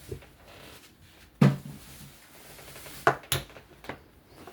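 Hard objects being handled and set down: one loud clunk about a second and a half in, then a few smaller knocks about three seconds in.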